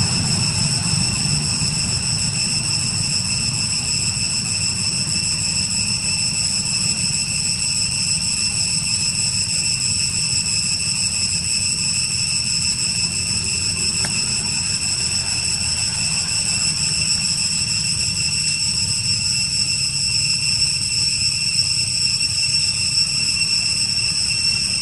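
Steady high-pitched insect chorus, several shrill tones held without a break, over a low rumble.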